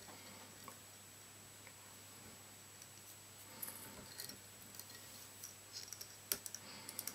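Faint small clicks and rustles of fingers handling thread and magpie tail fibres on a tiny jig hook in a fly-tying vise, with a sharper click about six seconds in.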